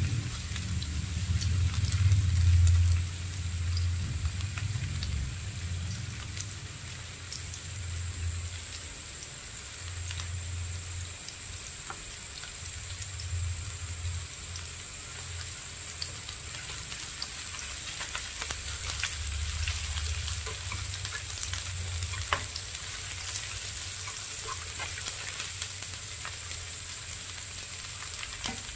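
Sliced onion and garlic sizzling and crackling in hot oil in a nonstick wok, stirred now and then with metal tongs.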